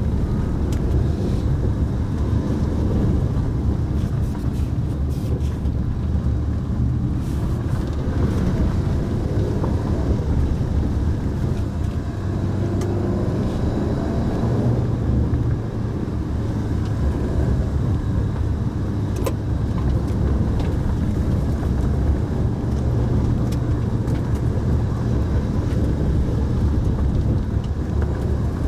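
Mitsubishi Pajero Mini's small 660 cc kei-car engine running under way, a steady low drone over tyre and road rumble that shifts a little in pitch as the speed changes. A few light clicks and knocks are heard over it.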